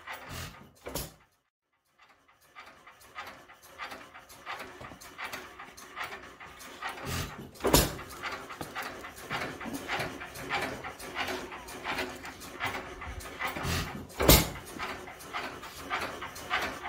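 Modified International hit-and-miss engine with buzz-coil ignition, ticking over as it coasts and firing with a sharp bang every several seconds, twice near the start, once near the middle and once late on. A dog pants close by.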